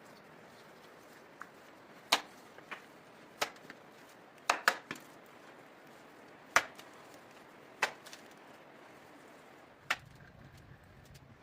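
Wood being chopped: about eight sharp blows at uneven intervals, two or three in quick succession near the middle.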